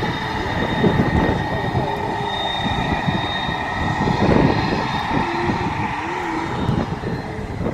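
Airplane engines running with a steady high whine over a rumbling roar as the plane passes near the runway end, with strong wind buffeting the microphone.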